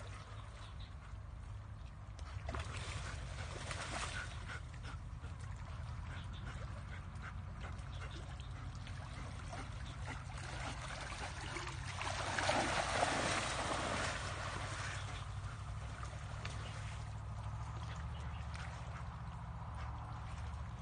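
A dog splashing through shallow muddy water after a duck, with one louder stretch of splashing about twelve seconds in, over a steady low hum.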